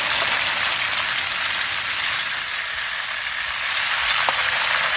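Fish deep-frying in a large pan of hot oil: a steady, even sizzle of bubbling oil.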